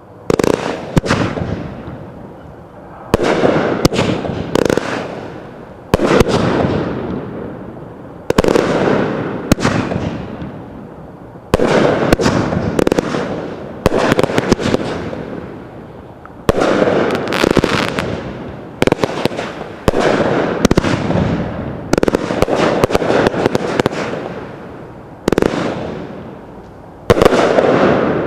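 Consumer firework cakes, a 41-shot Blue Brocade Barrage repeater and a Let Freedom Rings repeater, firing together. Shells launch and burst in volleys about every two to three seconds. Each volley is a cluster of sharp bangs that trails off before the next.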